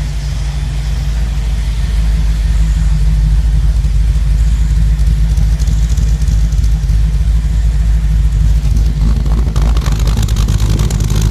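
Jeep CJ7 engine running steadily, its exhaust muffled through two glasspack mufflers added to the tailpipe, with a low resonant thrum. The exhaust is quiet enough that no hissing, ticking or knocking from a leak is heard.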